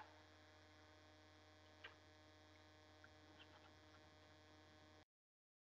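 Near silence: a faint steady electrical hum with a few faint ticks. The sound cuts off suddenly about five seconds in.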